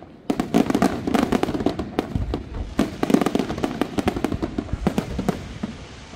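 Aerial fireworks display: a dense, irregular string of sharp bangs and crackles from bursting shells, starting after a brief lull.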